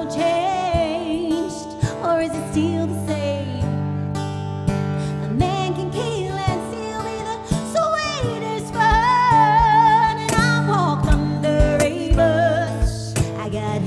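Live acoustic performance: a woman singing over a strummed acoustic guitar, with a cajon keeping the beat. She holds one long note with vibrato about two-thirds of the way through, and low thumps from the drum come through more clearly near the end.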